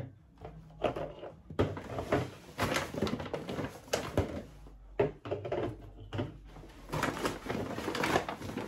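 Handling noise: rustling with a series of light knocks and taps as bottles of body mist and body wash are picked up and set down.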